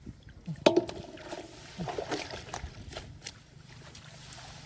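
Hands working through shallow muddy rice-field water: irregular splashing and sloshing, with a sharp splash under a second in.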